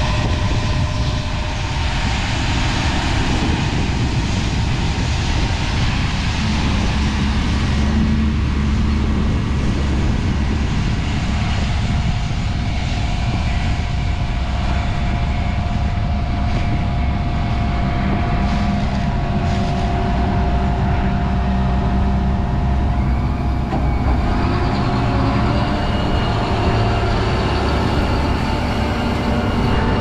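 Fendt Vario MT 943 track tractor's engine running steadily, driving the Kinze grain cart's unloading auger over a semi grain trailer. A faint steady whine joins in through the middle.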